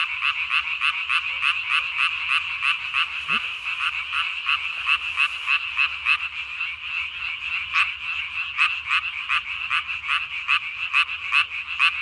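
Japanese tree frog calling at night: short, high croaks repeated evenly, about four a second, without a break.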